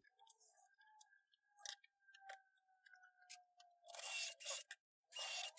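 Cordless drill running in two short bursts, about four seconds in and again at the end, with a whining motor as the bit bores pilot holes into an MDF board. Before that there are only a few faint clicks.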